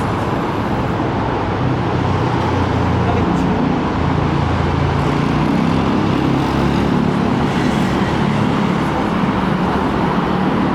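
Steady road traffic noise, with a vehicle's low engine hum swelling through the middle.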